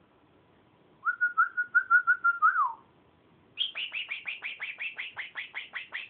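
Quaker parrot (monk parakeet) calling: about a second in, a quick run of about eight whistled notes at one pitch that ends in a falling note; then, after a short pause, a fast series of high chirps, about five a second, each dropping in pitch.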